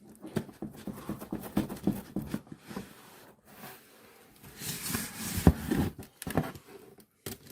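A cardboard box being cut open by hand: a blade scraping along the packing tape, with knocks and rustling from the cardboard. There is a louder scrape about five seconds in and a sharp knock just after it.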